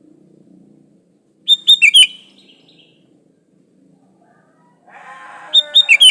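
Sooty-headed bulbul (kutilang) singing: two short phrases of about four quick, bright whistled notes each, a few seconds apart. Fainter chattering comes just before the second phrase.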